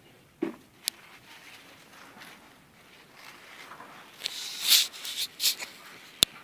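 Rustling of vine leaves and footsteps through a vegetable patch, loudest in a cluster of brushing noises in the second half, with a couple of sharp clicks near the start and end.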